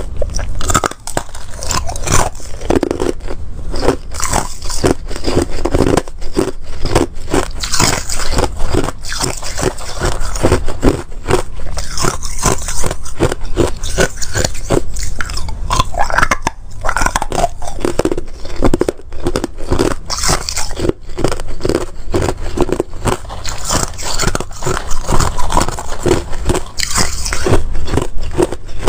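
Chunks of ice being bitten and chewed: a steady run of sharp crunches and cracks, several a second.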